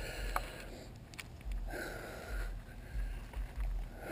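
A person breathing heavily, several long noisy breaths in and out, with an intermittent low rumble underneath.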